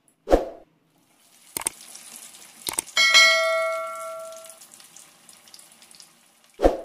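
Subscribe-button animation sound effects: a short thud, two sharp mouse-style clicks, then a notification bell ding that rings out and fades over about a second and a half, with another short thud near the end. A faint hiss of frying oil runs underneath.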